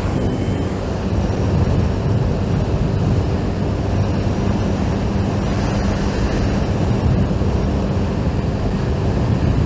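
Steady wind noise buffeting the helmet-mounted microphone while riding at a constant speed, with the Honda GTR150's single-cylinder engine humming evenly underneath.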